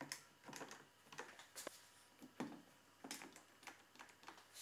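Faint, irregular light taps and clicks of a wooden fence and a quick-release bar clamp being handled and set on an MDF sled base.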